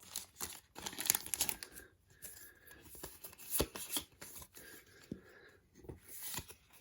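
Foil Pokémon booster pack wrapper crinkling as the trading cards are slid out and handled, with irregular scratchy rustles and a sharper tap about halfway through.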